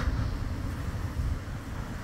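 Gusty wind buffeting the microphone, an uneven low rumble that swells and dips.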